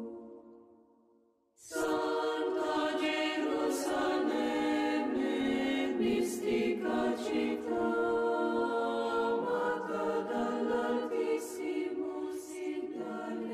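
Choral music: a piece fades away to near silence, then a choir starts abruptly about a second and a half in and sings steadily, with long held chords.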